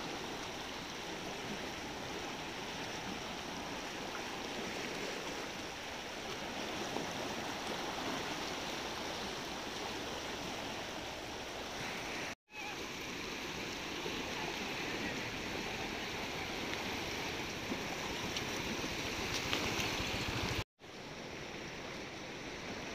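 Steady rush of a river in full flood, its fast, turbulent brown water churning past. The sound cuts out abruptly twice, for an instant each, about halfway through and near the end.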